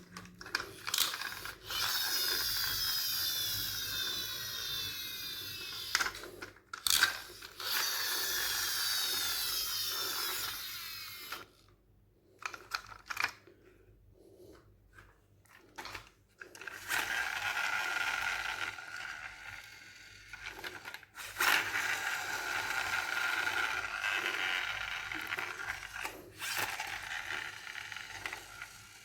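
Toy car's small gear mechanism whirring in runs of a few seconds, about four times, with short clicks and quiet gaps between.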